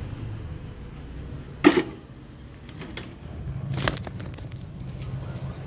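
Close handling noise from a hand holding a syringe in its plastic wrapper against the phone: a sharp crackle about a second and a half in and a second one near four seconds, over a low background rumble.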